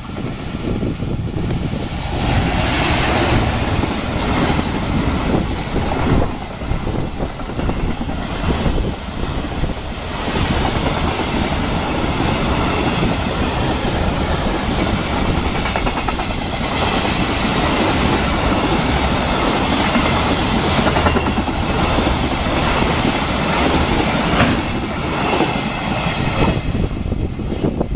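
JR Freight container train, hauled by an EF210 electric locomotive and pulling a long rake of container flatcars, running through at speed. Loud, steady rumble and clatter of wheels over the rail joints, which swells about two seconds in and eases off near the end.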